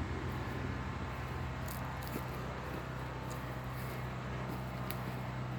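A steady low mechanical hum, holding one pitch, under a faint even hiss of outdoor background noise, with a few small high ticks.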